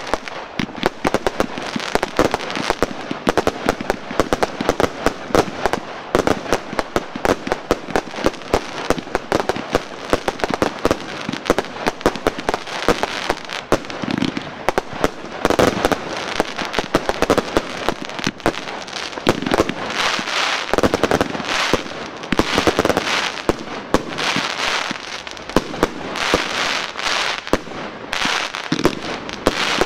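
Aerial fireworks going off in a rapid, unbroken string of bangs and crackles, densely overlapping throughout.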